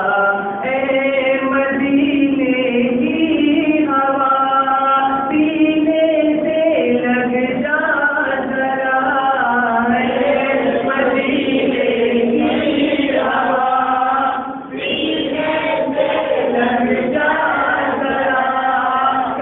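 Male voices chanting a naat unaccompanied, without instruments: a lead reciter on a microphone, with other men joining in. The chanting runs on without a break except for a short pause about three-quarters of the way through.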